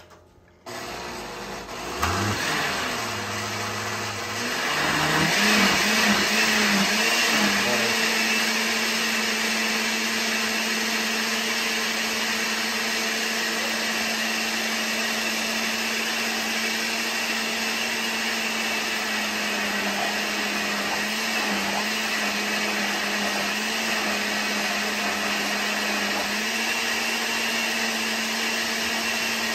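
Blender switched on about a second in, its motor speeding up over the next few seconds and then running steadily as it purees a thick mole sauce thinned with chili cooking water.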